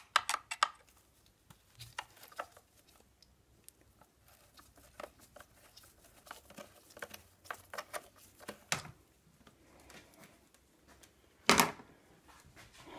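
Screwdriver working the screw of a metal worm-drive hose clamp on the turbo intake pipe: scattered small clicks and scrapes of metal on metal, with a louder clatter near the end.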